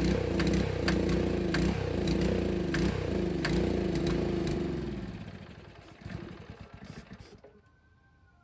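Honda GX200 single-cylinder engine running on starting fluid, then winding down and dying about five seconds in, with a few knocks after it stops. It will not keep running on its own, the sign that the cleaned carburetor still isn't feeding fuel.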